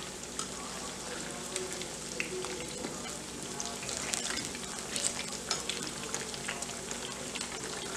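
Besan-battered brinjal slices deep-frying in hot oil in a kadhai: a steady sizzle full of small pops and crackles, with a slotted metal spoon knocking lightly in the pan as the fritters are turned.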